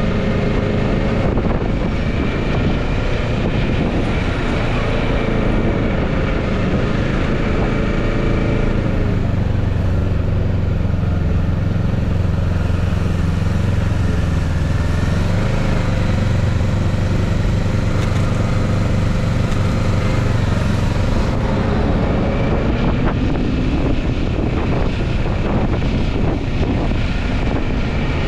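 Kawasaki Ninja 650's parallel-twin engine running at low revs while filtering through slow traffic. Its note drops and holds steady through the middle as the bike slows, then climbs again near the end as it speeds up, with a constant rush of wind and road noise.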